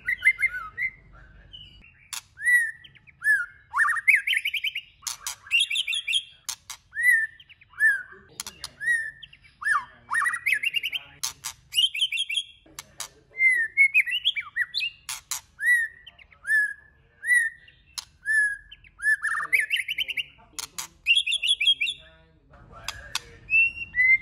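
Male white-rumped shama singing a long, varied song of short whistled phrases: repeated falling notes, rising sweeps and sharp clicks between them.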